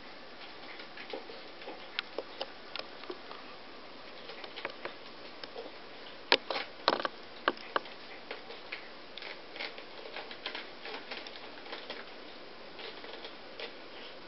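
Irregular light taps, clicks and pattering from kittens playing at a sisal scratching post with its hanging ball toy. A few sharper knocks come close together about halfway through.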